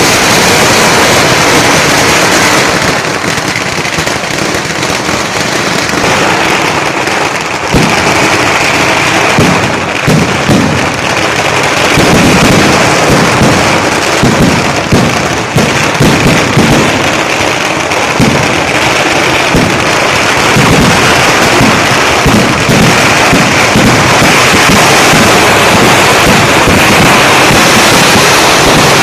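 Fireworks going off in a dense, continuous barrage of overlapping bangs and crackles, with the heaviest run of blasts in the middle.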